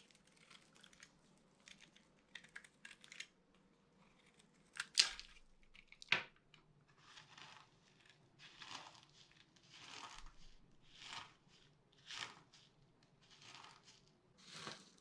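Dry bar soap crunching and crumbling. It starts with fine crackling, gives two sharp snaps about five and six seconds in, then a run of soft scraping crunches about once a second.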